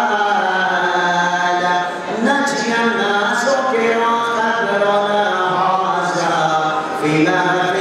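Unaccompanied male voice chanting a noha, a Shia mourning lament, through a microphone, in long held notes. There are short breaks for breath about two seconds in and again near the end.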